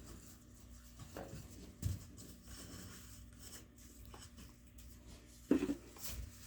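Faint rubbing and scraping with a few light knocks, the loudest a dull thump about two seconds in.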